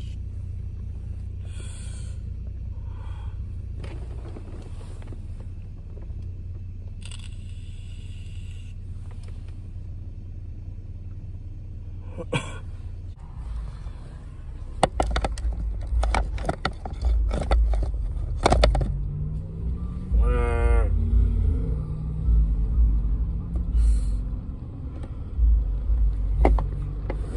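Inside a car: a steady low engine hum, then from about halfway through loud, uneven low rumbling with knocks and scrapes as the phone is handled, and a brief wavering voice-like sound a little later.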